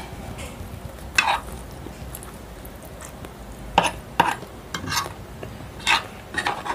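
A fork and spoon stirring and scooping a plate of stir-fried instant noodles, in a series of short scraping strokes, most of them in the second half.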